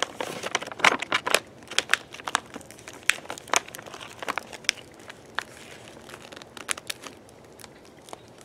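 A Faraday bag crinkling and crackling as it is handled and a flashlight is slipped into it. There is a dense run of sharp crackles at first, thinning out toward the end.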